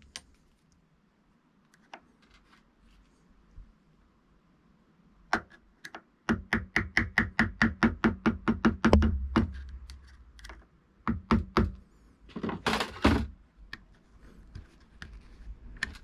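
Hammer tapping a small flat-head screwdriver to drive the old bushing out of a RockShox Monarch rear shock eyelet. A single strike comes about five seconds in, then a quick run of about five taps a second for some three seconds, then a few scattered taps near the end.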